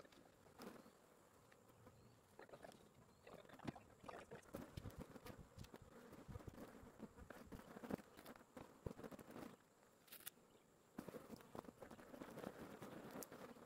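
Faint buzzing of honeybees flying about, with scattered light knocks and clicks throughout. The bees are agitated and defensive.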